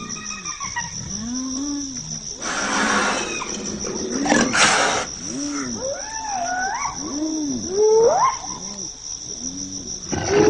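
Spotted hyenas calling: repeated short moans that rise and fall in pitch and several rising whoops, with two harsh noisy outbursts a few seconds in. A steady high chirring of crickets runs underneath.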